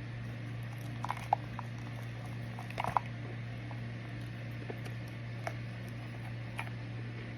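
Microwave oven running with a steady low hum, with scattered small pops and crackles from the contents as they dry out. The loudest cluster of pops comes about three seconds in, after a smaller one about a second in.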